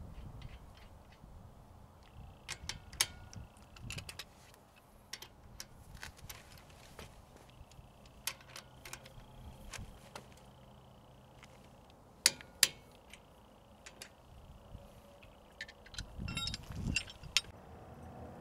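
Faint metallic clicks and clinks of a socket and wrench on a wheel lock lug nut as it is fitted and tightened. There are two sharp clicks about twelve seconds in and a quick run of clicks a few seconds later.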